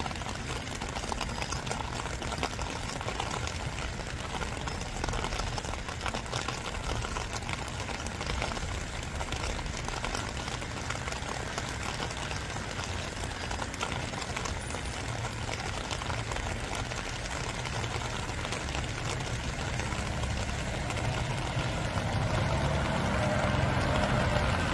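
Steady spring rain falling, a dense patter of drops over a low, steady rumble that grows louder near the end.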